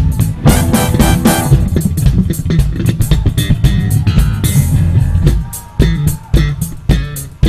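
Four-string electric bass guitar playing a funk solo, a busy run of plucked notes with sharp attacks; about five and a half seconds in it thins to a few separate punchy notes.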